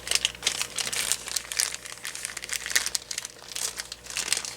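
Packaging crinkling and crackling in irregular bursts as it is handled and pulled open to free a cordless-phone battery pack.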